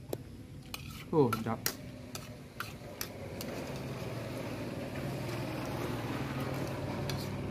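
Metal spoon clicking and scraping against a plastic bowl of instant noodles as the last mouthfuls are scooped up, a string of sharp clicks in the first half. A steady low hum grows underneath from about the middle.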